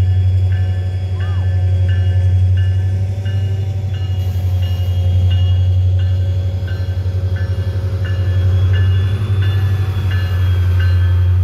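BNSF diesel-electric locomotive passing slowly with a steady low engine rumble. Over it comes an even run of short ringing strokes about every two-thirds of a second, the locomotive's bell ringing as it moves through the station.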